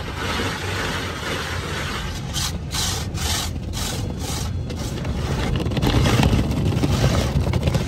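Rotating brushes of an automatic car wash scrubbing across the car's side window, heard from inside the cabin. The swishing pulses about twice a second in the middle, then grows louder and heavier near the end.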